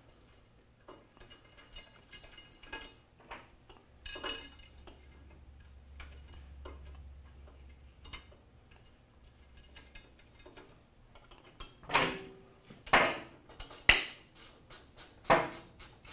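Hand ratchet wrench and small steel hardware clicking as the bolts of a motorcycle exhaust bracket are run in and snugged: light scattered clicks and taps at first, then four louder ratcheting strokes in the last few seconds.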